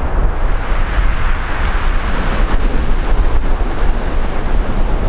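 Sea surf breaking and washing onto a pebble beach, with wind rumbling on the microphone.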